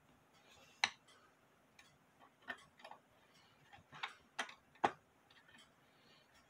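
A few sharp, irregularly spaced clicks and light knocks as parts inside a Hubert Herr cuckoo clock's wooden case are handled and worked by hand, the loudest about one second in and near five seconds in.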